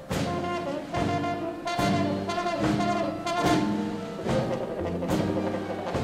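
Big band playing a swing jazz instrumental passage: trumpets and saxophones over drums, with sharp accents about once a second.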